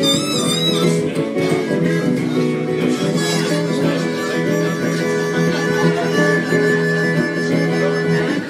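Harmonica and electric guitar playing together, the harmonica holding long notes over the guitar.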